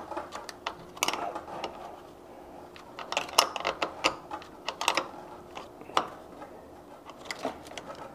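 Irregular light clicks and taps of small metal hardware at a boat battery's terminal post, as charger lead ring terminals and the terminal nut are handled and fastened.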